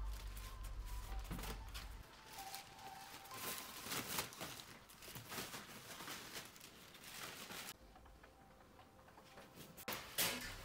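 Faint handling noise: a hand shifting on and rubbing against a smartphone in a series of soft rustles, then a light knock about ten seconds in as the phone is set down on a table.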